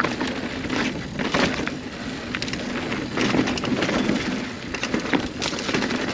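Single-speed hardtail mountain bike rolling along a dirt trail: tyres running over dirt and stones, with many scattered clicks and cracks of gravel and twigs. There is no chain slap.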